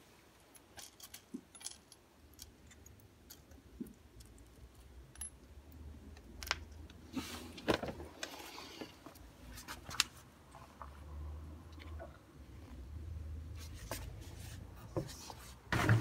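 Sparse light metallic clicks and clinks of small door-lock hardware and screws being handled and picked through.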